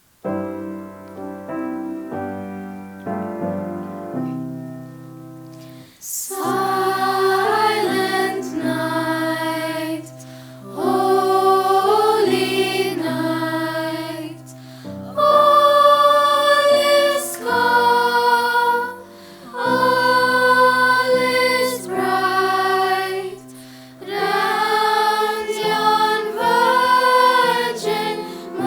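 Choir singing with instrumental accompaniment: about six seconds of sustained instrumental chords open the piece, then the voices come in and sing phrase after phrase with short breaks between them.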